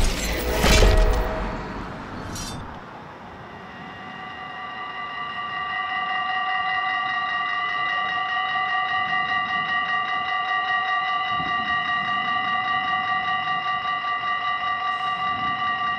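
A loud intro sound effect with a crash dies away over the first two seconds. Then Dutch level-crossing warning bells start ringing rapidly and continuously, growing louder over the next few seconds and then holding steady: the signal that a train is approaching and the barriers are coming down.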